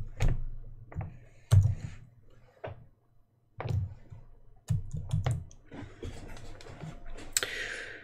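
Scattered key presses and clicks on a computer keyboard, single strokes about a second apart with a quick cluster in the middle, and a short hiss near the end.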